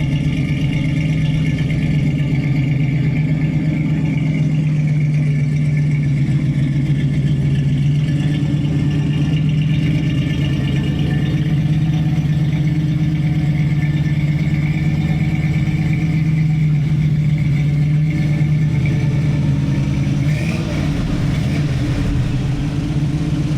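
1983 Oldsmobile Cutlass Hurst/Olds V8 idling steadily.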